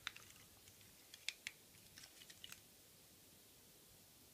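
A few faint, scattered clicks and taps of hard plastic parts on a Transformers Piranacon combiner toy being handled and adjusted.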